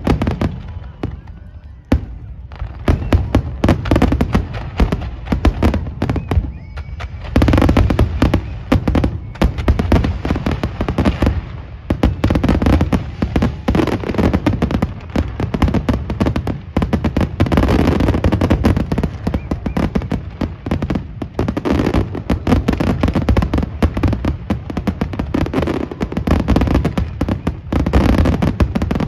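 Fireworks display: a dense barrage of shell bursts and crackling reports coming thick and fast. It is somewhat lighter for the first few seconds, then continuous and heavier from about seven seconds in.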